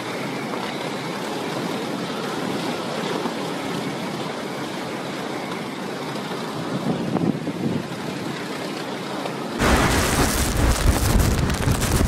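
Hurricane wind and rain as a steady rushing noise. About ten seconds in it cuts suddenly to louder, gusting hurricane wind buffeting the microphone.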